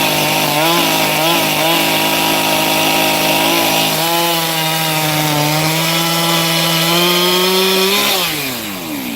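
Two-stroke chainsaw running at high revs, cutting wood, its pitch dipping briefly a few times in the first two seconds as it takes load. It then holds a steady high pitch and winds down in a falling glide about eight seconds in as the throttle is released.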